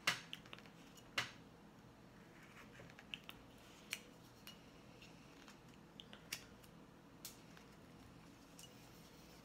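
Carving knife cutting into a small wooden block by hand: a few sharp clicks and snaps as chips are sliced away, the loudest right at the start and about a second in.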